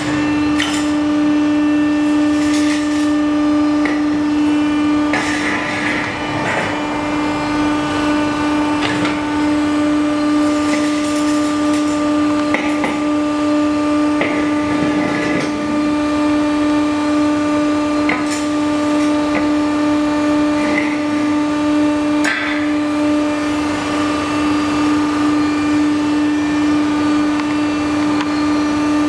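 Hydraulic punching machine for steel profiles running, its hydraulic power unit humming steadily, with irregular metallic knocks and clicks from the machine and workshop.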